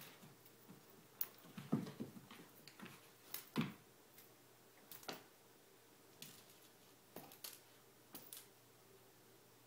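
Irregular light taps and soft thumps from a cat at play, a second or so apart, with two louder thumps about two seconds and three and a half seconds in.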